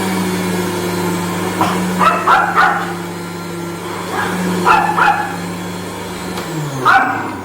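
Moulinex juicer's electric motor running with a steady hum, then winding down and stopping about six and a half seconds in. Short sharp high sounds, mostly in pairs, break in over it several times.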